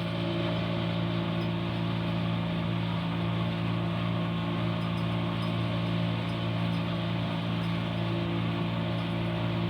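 Boat's outboard motor running at a steady speed as the boat travels, a constant engine drone with no change in pitch.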